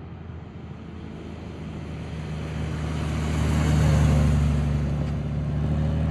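Honda Gold Wing touring motorcycle's flat-six engine passing by at steady cruising speed. It grows louder as it approaches, is loudest about four seconds in as it goes past, then fades slightly as it moves away.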